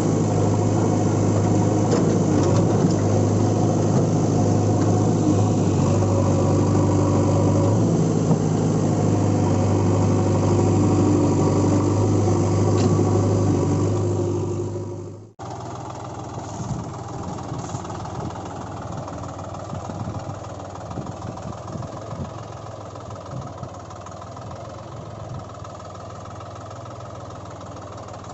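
A vehicle engine running steadily with a strong low hum, cut off abruptly about halfway through. After that a quieter engine runs on, rougher and uneven.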